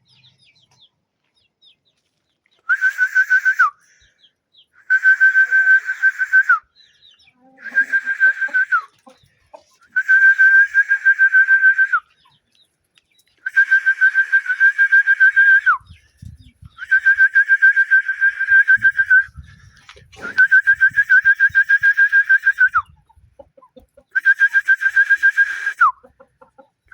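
A rooster crowing again and again, about eight crows. Each crow is a loud, held, even-pitched note with a raspy edge, lasting one to two and a half seconds and ending in a quick downward drop.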